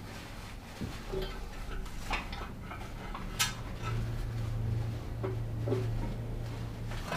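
Metal tools and brake parts clinking and being handled, in scattered short knocks. A low steady hum sits underneath, louder from about halfway in.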